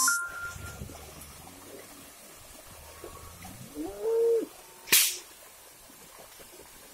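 A single short animal call about four seconds in, rising in pitch and then holding, over a faint background. About a second later comes a sharp crack.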